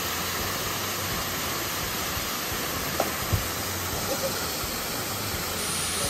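Waterfall pouring into a rock pool: a steady rush of falling water. Two brief sharp sounds come about three seconds in.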